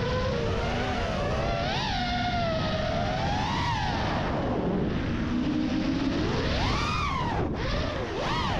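Brushless motors and propellers of a 6S freestyle FPV quadcopter whining over a steady rush of air. The whine's pitch sweeps up and down with the throttle, and it cuts out for an instant near the end.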